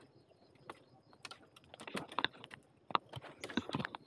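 Irregular snapping and crackling of dry bamboo stems and leaf litter, sparse at first and busier from about two seconds in.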